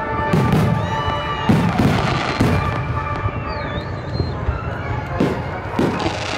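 Aerial fireworks shells bursting one after another, each a sudden bang with a low rumble, with music playing underneath.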